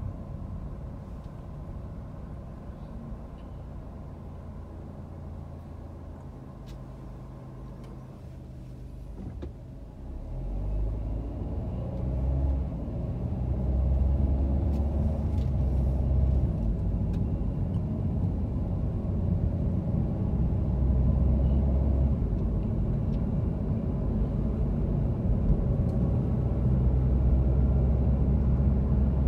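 Car driving on a city street, engine and road rumble heard from inside the cabin. The rumble grows clearly louder about ten seconds in and stays up.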